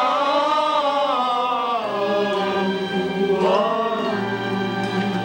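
Men's chorus singing long held notes together in a show tune.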